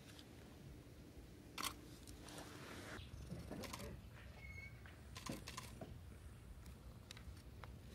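Faint background ambience with a few scattered soft clicks and taps, and a short high peep about halfway through.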